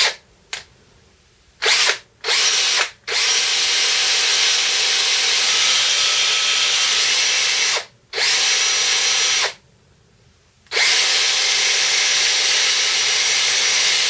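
DeWalt 18-volt XRP cordless drill motor test-run: a few short trigger blips, then three long steady runs with abrupt stops between, the first about three seconds in, the last from about eleven seconds in. The brushes are bedding in again on the freshly cleaned commutator, a repair for the drill's smoking and overheating, and the motor sounds better.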